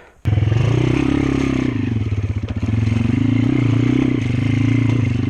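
Dirt bike engine running loud, starting abruptly about a quarter second in, its revs rising and falling a little.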